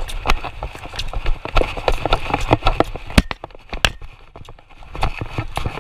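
Hoofbeats of a horse running on arena dirt, close up from a camera carried on the rider, as irregular sharp knocks over a low wind rumble. The knocks ease off briefly a little past halfway, then pick up again.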